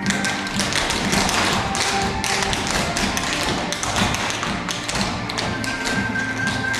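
Several dancers' feet tapping and stomping in a quick rhythm on a stage floor, over music with a steady beat.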